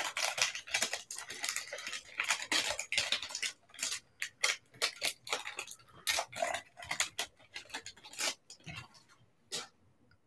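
Foil trading-card pack wrapper being torn open and crinkled by hand: a dense run of irregular crackles that thins out and stops shortly before the end.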